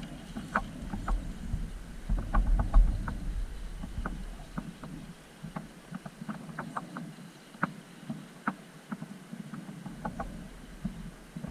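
Radio-controlled scale rock crawler working over rocks: irregular clicks and knocks of tyres and chassis against stone over a low rumble, with heavier thumps a couple of seconds in.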